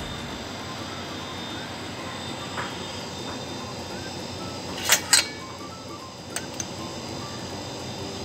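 Steady kitchen background hiss with faint, steady high-pitched tones. About five seconds in come two sharp clinks in quick succession, then two lighter clicks about a second later, as kitchenware is handled.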